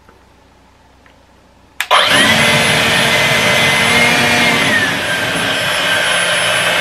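EGO LB7654 56-volt cordless leaf blower switched on with a click about two seconds in, spinning straight up to a loud, steady rush of air with a high fan whine, running on its cruise-control speed setting. The whine drops a little in pitch about three seconds after start-up, then holds steady.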